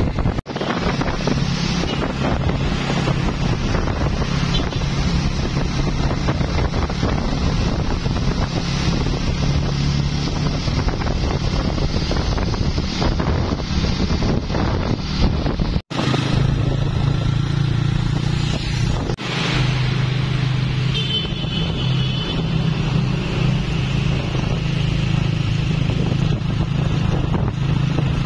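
A covered light truck's engine running with a steady low drone as it drives along the road among cars and motorbikes, with wind on the microphone. The sound cuts out abruptly twice, once near the start and once about halfway through.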